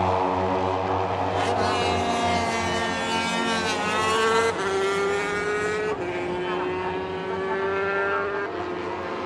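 Several J-GP3 racing motorcycles, 250 cc four-stroke singles, running hard past at full throttle as a pack. The leading engine note drops in steps with upshifts about four and a half, six and eight and a half seconds in, over the overlapping notes of the other bikes.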